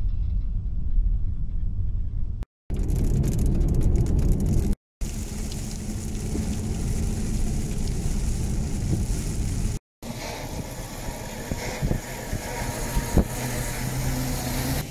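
Car driving along a road, heard from inside the cabin: a steady low rumble of engine and tyres. It is chopped into several short clips, with brief drops to silence about two and a half, five and ten seconds in.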